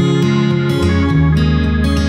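Background music led by plucked guitar over a low bass line, the bass changing note a little past a second in.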